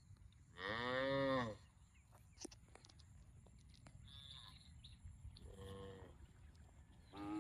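Cow mooing: a short moo about a second in, a fainter one later, and another beginning near the end.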